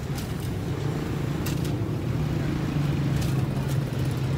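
A steady low engine rumble of motor traffic, over a faint sizzle and a few crackles from jalebi batter frying in hot oil.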